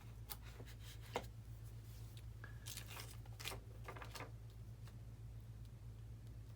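Faint handling noises at a workbench: a scatter of small clicks and rustles, with one sharper tick about a second in and a busier patch in the middle, over a steady low hum.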